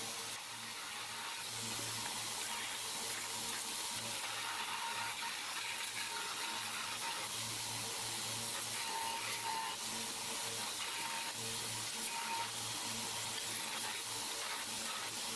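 Belt grinder running with a steady hiss as a small welded steel part is held against the abrasive belt and ground.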